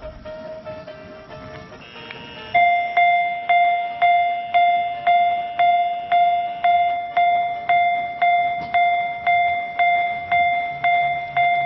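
Railway level-crossing warning bell starting up about two and a half seconds in, ringing steadily at about two strikes a second, each strike a clear tone that dies away.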